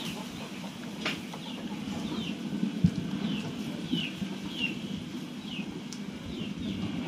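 A bird cheeping: short downward chirps repeated a little more than once a second. One dull thump about three seconds in.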